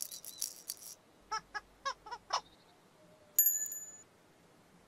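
Cartoon sound effects for Igglepiggle setting off. First comes a quick clicky rattle, then a run of about five short squeaks, then a single bright bell ding near the end, the loudest sound, which rings briefly and fades.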